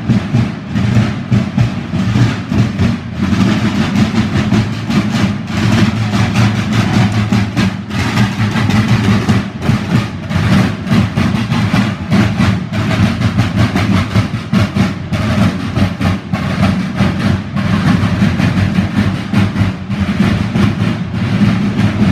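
Several painted parade drums beaten together with sticks in a continuous, rapid, rolling beat.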